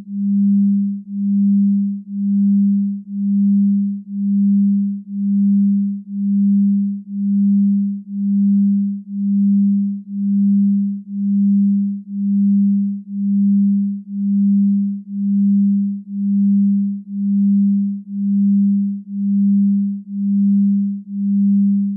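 A low, pure electronic tone that swells and fades in a steady pulse about once a second.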